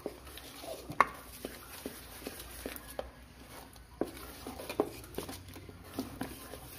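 A spoon stirring thick rice-flour and banana batter in a stainless steel bowl, with irregular clicks and knocks of the spoon against the bowl's side, the loudest about a second in.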